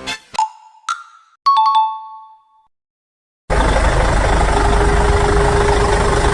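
Three short chime dings in the first second and a half, then a brief silence, then a vehicle engine sound starting about three and a half seconds in and running steadily.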